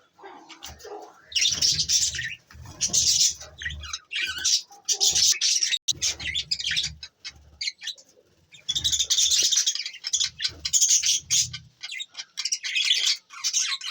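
Budgerigars chattering in repeated bouts of rapid, high chirps and warbles, each bout about a second long, with a longer stretch of chatter in the second half. Low rumbles come and go alongside the chirping.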